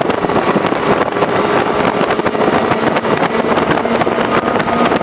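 Twin Mercury Racing 400R supercharged six-cylinder outboards running flat out at about 72 mph, a steady engine whine under heavy wind noise on the microphone and rushing water.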